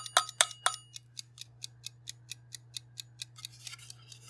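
Clockwork escapement of an opened wind-up kitchen timer ticking steadily, about five ticks a second. The first few ticks are louder, with a light metallic ring, then the ticking goes on more quietly. A brief rustle of handling comes near the end.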